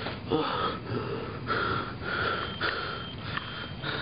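A person breathing heavily close to the microphone, in short quick breaths about two a second, with a faint whistle in each breath.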